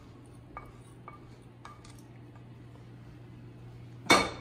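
A wooden spoon tapping lightly against a small nonstick frying pan a few times, knocking out the last toasted cumin seeds, then one loud clunk on the countertop near the end.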